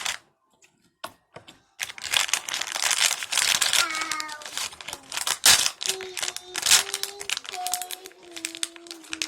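Packaging crinkling and rustling as it is handled, starting after a short pause with sharp crackles throughout. In the second half a voice hums a few long, held notes over it.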